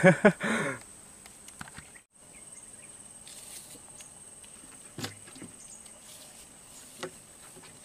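Quiet swamp-side ambience with a faint, steady, high-pitched insect trill. A couple of soft knocks come about five and seven seconds in.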